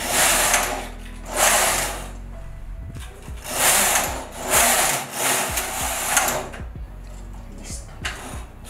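Silver Reed knitting machine carriage pushed back and forth across the needle bed, a rasping swoosh with each pass, about five passes, then a few light clicks near the end. The passes knit rows of waste yarn to take the stitches off the needles.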